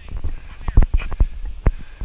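A handful of irregular knocks and thumps, unevenly spaced, strongest in the second half.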